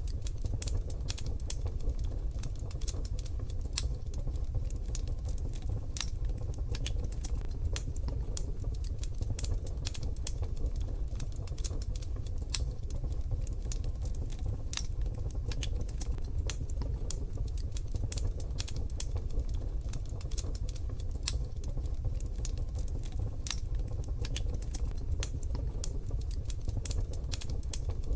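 Wood fire in a wood-burning stove crackling: dense, irregular sharp pops and snaps over a steady low rumble.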